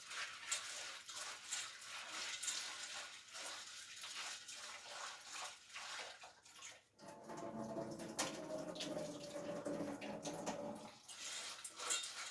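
Water running and splashing steadily, like water poured or flowing from a tap. From about seven seconds in it takes on a fuller sound with a pitched note in it, then thins again near the end.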